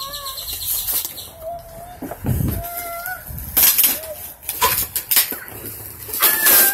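Cardboard shipping box being pulled and torn open by hand, with several loud bursts of tearing and rustling cardboard and packing tape, the loudest about three and a half seconds in and near the end. Short, thin, wavering whining cries sound in between.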